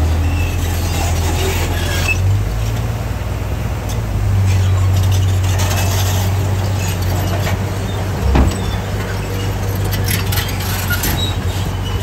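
Heavy diesel engines of a D60 bulldozer and a 25-ton dump truck running steadily as soil and stone pour off the truck's raised tipper bed, with a single low thud about two-thirds of the way through.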